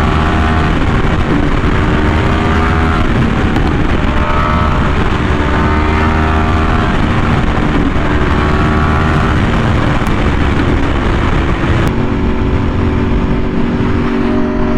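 Yamaha R1M's crossplane inline-four, through an SC Project exhaust, accelerating hard. It climbs in pitch and drops back at each upshift about four times, then holds a steady pitch at speed for the last few seconds, under a heavy rush of wind.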